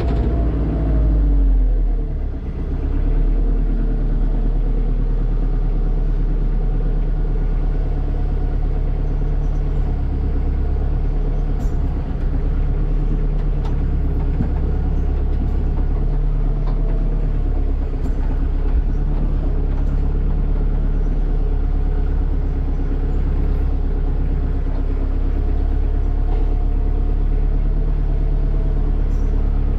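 Kubota tractor's diesel engine running steadily, heard from inside the cab as a low rumble. Its pitch falls in the first couple of seconds as the revs drop, then holds steady.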